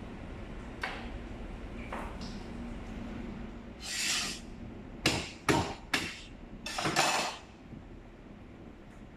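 Butchering on a cutting board: three sharp knocks, with a short scraping rush before and after them, as a whole pig carcass is cut and handled. Under it runs a steady low hum from the refrigerated butcher room.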